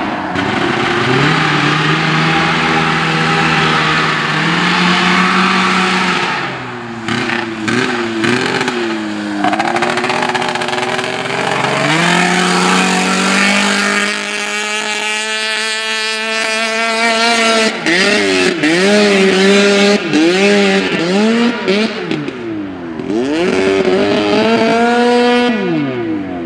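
ATV fitted with a 440cc two-stroke snowmobile engine, ridden hard: the engine holds a high, steady note for several seconds, dips, then revs up and drops back again and again, with a run of quick rev sweeps near the end.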